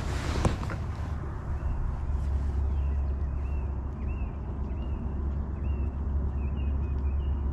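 Wind buffeting the microphone: a steady low rumble with one sharp knock about half a second in. Faint, short high chirps repeat every half second or so through the middle.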